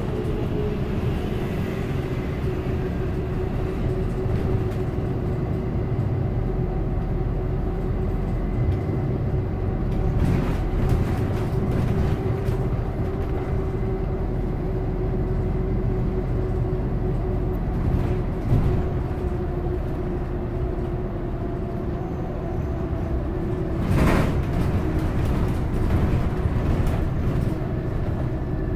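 Inside a moving SF Muni city bus: a steady drive and road rumble with a constant whine. Now and then the body knocks or rattles, with one sharper bang about 24 seconds in.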